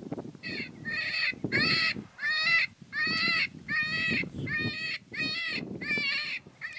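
A rapid, even series of harsh, crow-like caws, about one and a half a second, with low rustling noise underneath.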